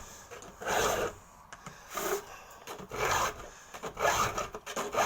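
A 2-in-1 chainsaw file guide with a 7/32" round file, pushed by hand across saw chain teeth in several rasping strokes about a second or two apart, sharpening the cutters and taking down the rakers together.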